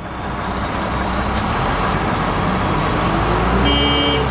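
Kalmar reach stacker running steadily while its spreader handles a shipping container, a low engine rumble with a faint rising whine. A brief steady whine comes in near the end.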